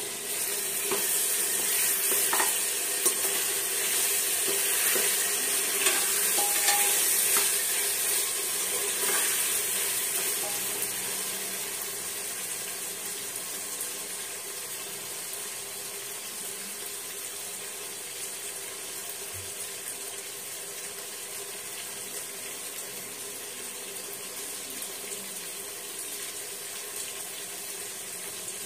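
Potato cubes, peanuts and tomato sizzling in hot oil in a pressure cooker. For about the first ten seconds a metal spatula stirs them, with scrapes and clicks against the pot, then the sizzling goes on alone, quieter and steady.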